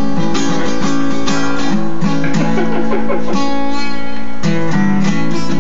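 Guitar strummed in a steady rhythm, chords ringing: the instrumental lead-in to a country-style song.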